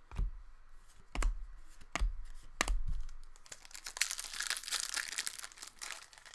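Four sharp taps against the tabletop, then a foil trading-card pack wrapper crinkling and tearing open.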